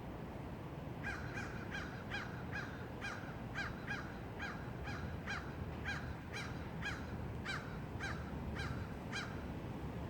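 Wind blowing through trees as a steady rush. From about a second in until near the end, a bird calls over it in a run of short, evenly spaced calls, about two a second.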